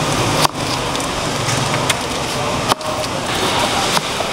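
Long kitchen knife slicing through watermelon and knocking on the cutting board, a few sharp knocks over a steady background din.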